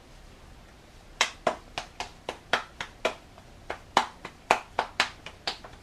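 Hands patting a ball of tortilla dough flat between the palms, a quick, even run of slaps about four a second, starting about a second in.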